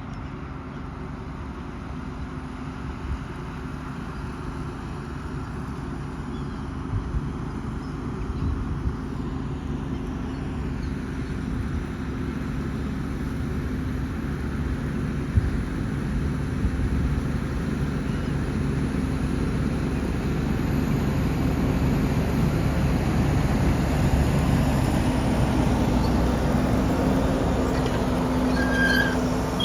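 Fendt 720 tractor engine running steadily under load while pulling a four-furrow reversible plough, growing gradually louder as it approaches.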